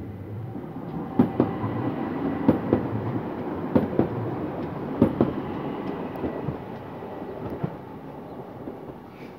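ÖBB Talent electric multiple unit running past, its wheels clicking over the rail joints in paired clicks every second or so. The rumble builds about a second in and fades over the last few seconds.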